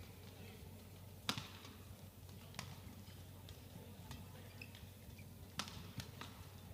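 Badminton racket strikes on a shuttlecock during a doubles rally: a few sharp, separate hits, the loudest about a second in and two close together near the end, with faint shoe squeaks on the court floor.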